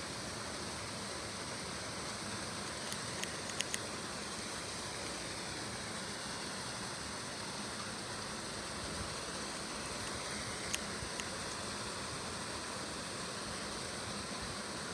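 Steady even hiss of background noise with a few faint sharp clicks, a small cluster about three to four seconds in and one more near eleven seconds.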